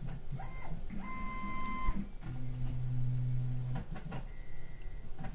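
Stepper motors of a Milo V1.5 desktop CNC mill driving its axes through an automated single-axis probing cycle. It makes a series of separate moves, each a steady whine that starts, holds and stops. The pitch changes from move to move, and the longest move, in the middle, is lower-pitched.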